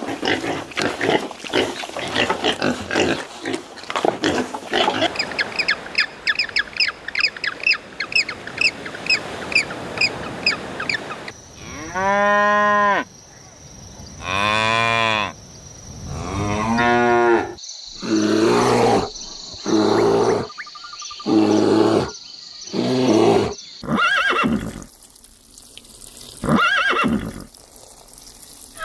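A run of farm animal calls: rapid, high, repeated calls for about the first ten seconds, then a series of about eight long, pitched calls of a second or two each, like bovine mooing.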